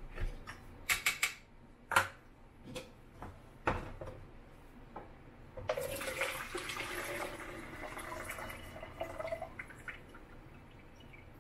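A few sharp clicks and knocks from a plastic film-developing tank being handled, then about a second in from the middle the tank is upside down and the developer pours out of it into a plastic measuring jug, a steady splashing rush that tapers off near the end.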